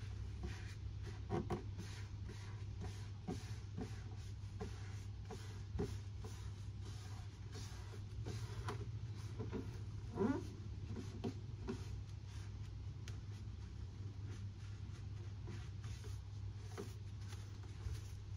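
A squeegee rubbing over a wet decal: faint scratchy scraping with scattered light clicks and a short squeak about ten seconds in, over a steady low hum.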